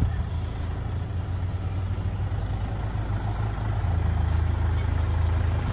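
Tractor diesel engine running steadily. Its note grows a little louder about four seconds in as the hydraulics start lifting the disc mower's cutter bar.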